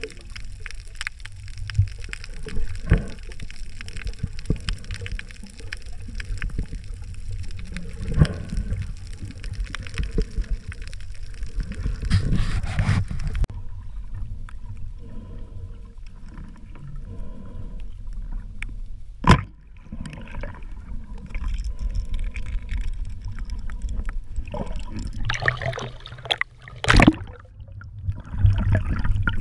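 Water sloshing and gurgling around a camera underwater, as a night spearfisher swims, with a low rumble and many small clicks. A few sharp knocks stand out, one about two-thirds of the way in and another near the end.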